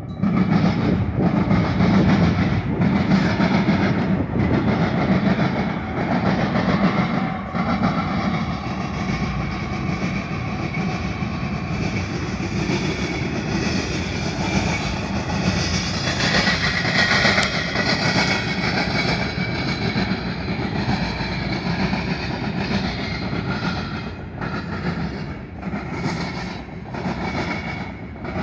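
Freight train passing close by. A CSX diesel locomotive hums past in the first seconds, then a string of freight and tank cars follows, their wheels clacking in an uneven rhythm.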